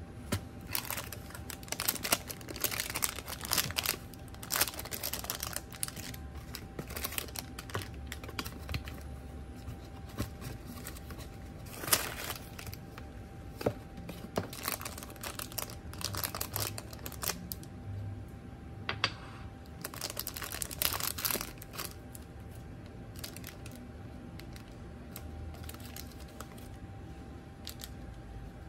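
Crinkling and rustling of the foil-lined paper wrappers of ice cream bars and their cardboard box as they are handled and torn open, in irregular bursts of crackling with a sharp crackle about twelve seconds in.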